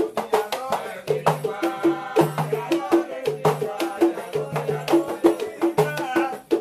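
Batá drums playing an interlocking rhythm: sharp slaps and pitched open tones on the two-headed hourglass drums, with the ring of brass bells on the large iyá drum jingling at each stroke. A voice sings over the drumming.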